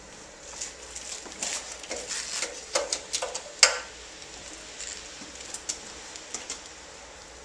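Scattered clicks, light knocks and rustles of someone moving about and handling a small engine, with the sharpest click about three and a half seconds in. The sounds thin out in the last few seconds.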